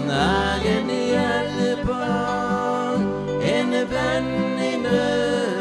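A man singing a Norwegian hymn to his Roland digital accordion, with an acoustic guitar accompanying.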